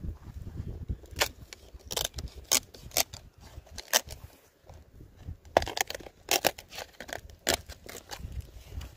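Sickle-shaped tapping knife cutting and scraping the fibrous crown of a palmyra palm: a string of sharp, irregular cracks and crunches with scratchy rasping between.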